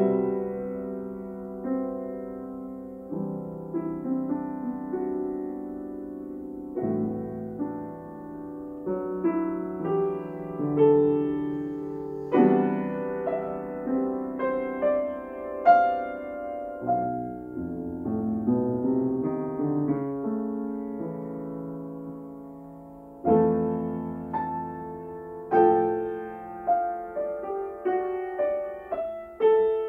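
A grand piano played solo: chords and melody notes struck and left to ring out. A softer, thinning passage gives way to a loud chord about 23 seconds in.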